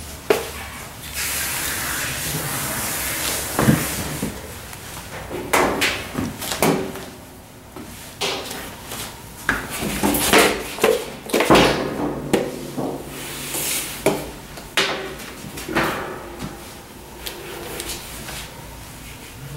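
A struggling cat in a cone collar thrashing on a metal grooming table, making a run of sharp knocks and scrapes. About a second in there is a hiss lasting two seconds or so.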